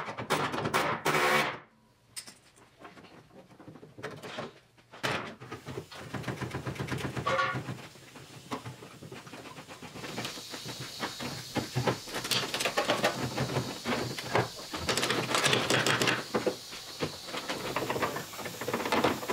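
Hand-held air tool chattering against sheet steel in rapid bursts, with metal clanks and scraping, as an old overlapping repair patch is worked off the body. It is loudest in the first couple of seconds, then goes on as a long run of quicker, lighter knocks and rattles with an airy hiss.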